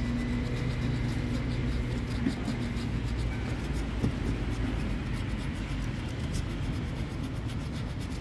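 A coin scratching the coating off a scratch-off lottery ticket in quick, repeated short strokes, over a steady low rumble.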